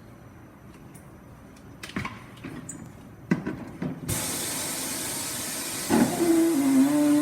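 Pneumatic bead breaker on a tire changer: a few light knocks, then about four seconds in a sudden steady hiss of compressed air as it is worked. A pitched squeal rides over the hiss near the end.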